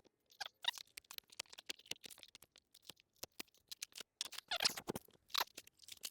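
Paper and packaging being handled: irregular crinkling and rustling with many small sharp clicks, and a few longer rustles near the middle and end.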